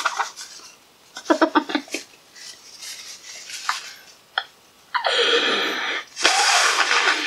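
A child giggling briefly, then blowing their nose hard into a tissue: two long, loud, noisy blasts of about a second each, starting about five seconds in.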